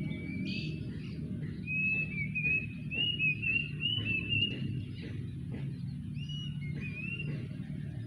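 Cuckoo calling: a run of quick, shrill whistled notes that climb slightly in pitch, followed by a few more whistles near the end, over a steady low rumble.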